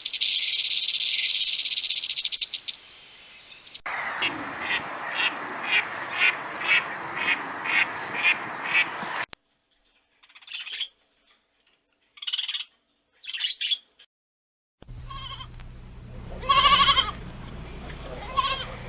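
A string of short farm-animal call clips, edited one after another. First a fast, high rattling buzz, then a run of about ten short calls roughly twice a second, then three brief high calls, and finally a few more calls over a low steady hum.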